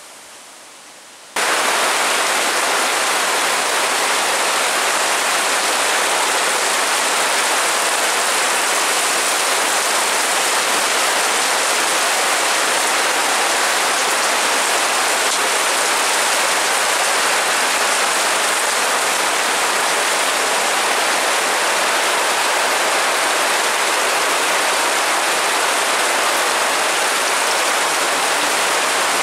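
Heavy rain pouring down steadily, heard from under a corrugated metal porch roof. A quieter steady hiss in the first second and a half cuts off suddenly as the loud rain begins.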